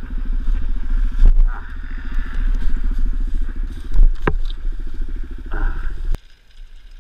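Dirt bike engine idling steadily, with a couple of sharp knocks along the way; the engine sound cuts off suddenly about six seconds in.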